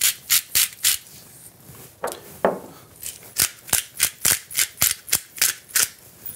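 Hand-twisted salt and pepper mill grinding, each twist a short dry crunch: a quick run of about four turns, then after a pause a longer run of about ten, roughly three turns a second.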